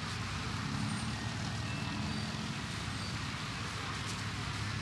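Busy outdoor ambience: a steady low engine drone under the murmur of a crowd.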